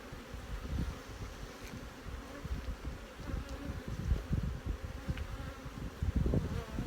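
Honeybees buzzing around an opened hive.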